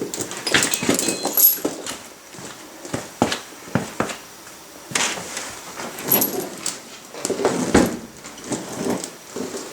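Irregular metal clunks, knocks and scrapes as a heavy tractor wheel is shifted and worked onto the studs of a wheel spacer.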